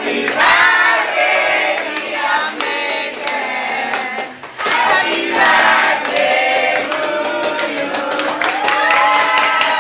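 A group of people singing a birthday song together while clapping along in time.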